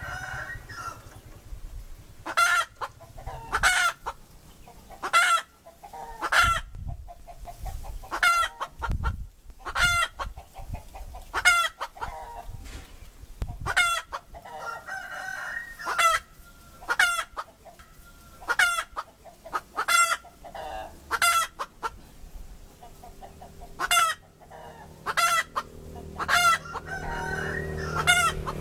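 A hen calling: short, sharp clucks repeated about every one to two seconds, with a pause of about two seconds near the end.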